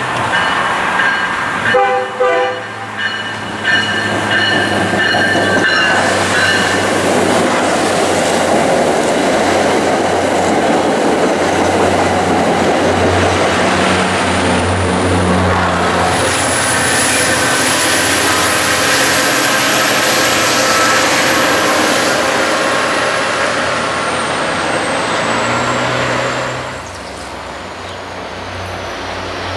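MBTA diesel-hauled commuter train sounding its horn for the first few seconds, then passing close by with the locomotive's diesel engine running and the wheels rumbling over the rail joints. A thin high-pitched squeal, likely wheel squeal on the curve, slowly rises and then falls in pitch through the second half. The noise drops away abruptly near the end.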